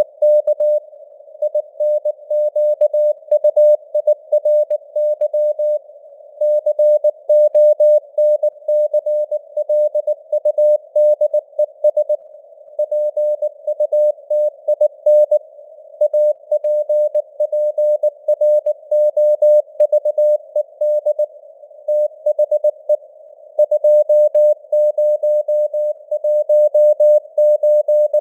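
Morse code (CW) sent at 19 words per minute: a tone of about 600 Hz keyed on and off in dots and dashes, with short pauses between words. It sits in simulated radio noise, as an amateur-radio CW signal sounds on a receiver.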